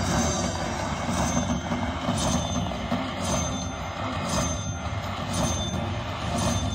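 Slot machine's win rollup as the credit meter counts up after a bonus: a steady noisy wash with a short high ding about once a second, over casino floor noise.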